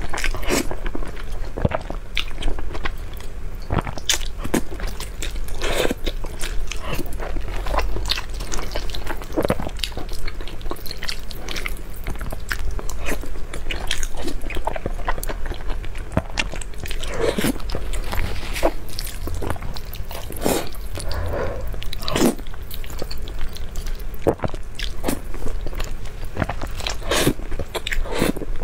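Close-miked slurping and chewing of saucy instant noodles eaten with chopsticks: a constant, irregular run of wet slurps, smacks and small mouth clicks.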